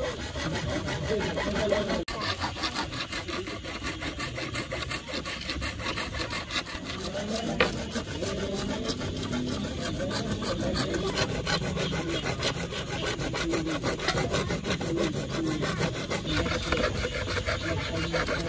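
A thin saw blade, worked by hand, sawing slots into a plastic PVC pipe: continuous quick back-and-forth rasping strokes.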